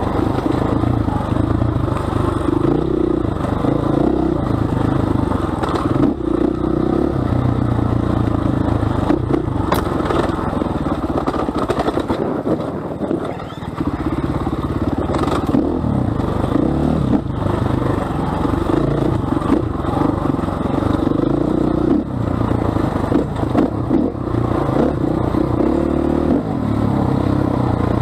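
KTM 500 EXC's single-cylinder four-stroke engine on and off the throttle, revs rising and falling in short bursts, easing off briefly about twelve seconds in. Scattered rattles and knocks from the bike over rough ground.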